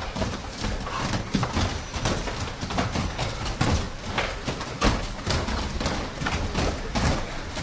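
Many bare feet thudding and slapping on foam grappling mats as a group hops and moves through a warm-up drill, in an irregular patter of several impacts a second.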